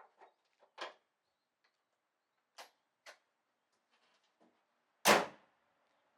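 A few scattered light clicks and one louder knock about five seconds in, with near silence between them.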